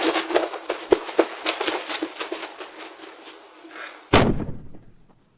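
Dense crackling with many small pops that fades over about four seconds, then one loud bang that dies away within a second.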